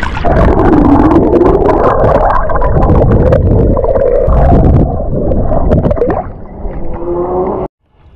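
River water heard underwater through a submerged action camera's housing: a loud, muffled rumbling and gurgling with a wavering tone and scattered clicks. It cuts off abruptly near the end.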